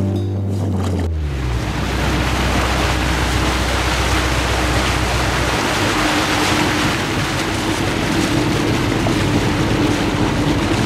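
Steady rush of wind and water with a faint, steady low hum, the sound of a motorboat under way on open water. Music ends about a second in.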